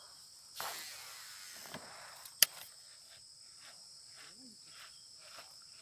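A lure cast from a fishing reel: the line pays out with a hiss that fades over about a second and a half, then a single sharp click, the loudest sound, followed by the reel being wound in with faint even ticks, about three a second. Insects keep up a steady high buzz throughout.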